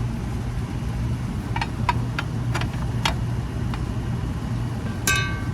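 Small metal clicks and taps as a sheet-metal cover is fitted to an electrical box, ending just after five seconds in one sharp metallic clink that rings briefly. A steady low machine hum runs underneath.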